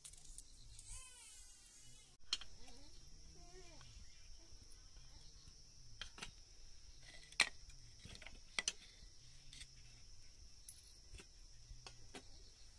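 Steady high-pitched insect drone, faint, with a few sharp clicks and knocks scattered through it, the loudest about seven seconds in.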